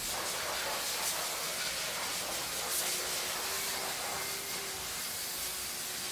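A steady hissing spray from auto detailing equipment starts abruptly, with a faint steady hum joining about three seconds in.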